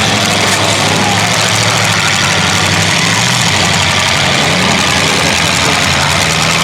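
Several demolition derby cars' engines running together, loud and steady, with engine pitch rising and falling as the cars rev and move.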